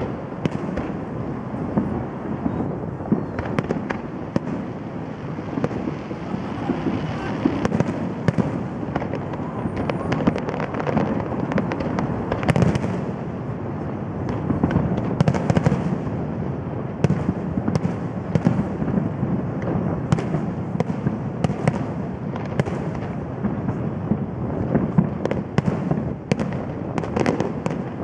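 Aerial fireworks display going off: a steady stream of overlapping bangs and pops with no pause.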